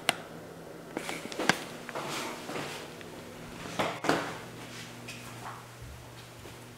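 A few short knocks and clunks in a small room over a faint steady hum, the sharpest just at the start, about a second and a half in, and around four seconds in.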